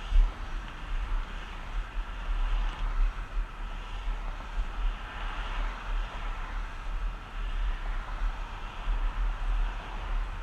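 Wind buffeting the camera microphone in uneven gusts, over the steady rolling hiss of skateboard wheels on an asphalt path.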